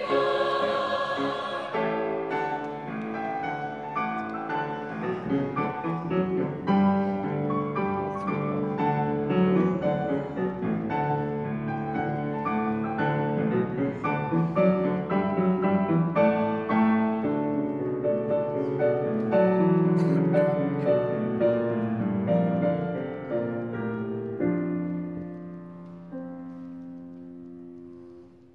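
Mixed choir of women's and men's voices singing in held chords. The singing grows quieter near the end and dies away on a soft sustained chord.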